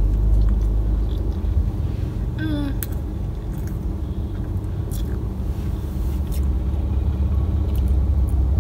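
Steady low rumble of a car's idling engine heard from inside the cabin, under soft biting and chewing sounds of someone eating a cupcake, with a short hum of the voice about two and a half seconds in.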